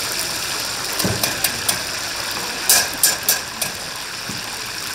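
Steady hiss of chicken deep-frying in hot oil. A low thump comes about a second in, followed by a few small clicks and then several sharp metal clatters near the middle.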